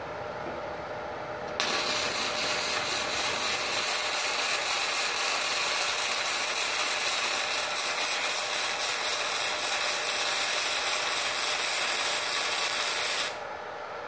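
Gasless flux-core MIG welding arc from a Multipro inverter welder set at 85 amps: a steady, dense crackle that starts suddenly about a second and a half in and cuts off sharply about a second before the end.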